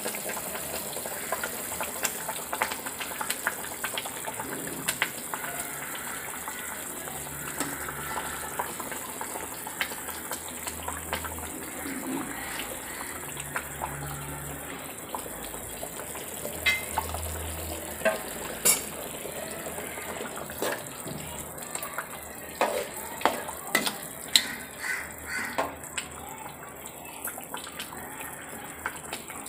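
Fish curry bubbling at a boil in an aluminium pot, with splashes as pieces of eel are dropped in. A metal ladle knocks against the pot in sharp clicks, more often in the second half.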